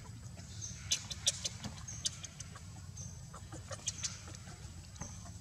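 Dry leaf litter crackling in quick sharp clicks as macaques move over it, loudest about a second in and again near four seconds. A short high chirp repeats about once a second behind it.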